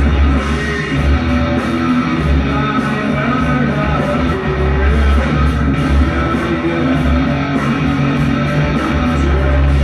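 Live rock band playing with electric guitars and drums.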